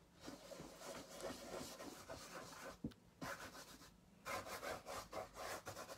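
Fingers and fingernail rubbing and scraping through wet acrylic paint on canvas: faint strokes, a lull about halfway, then more strokes near the end.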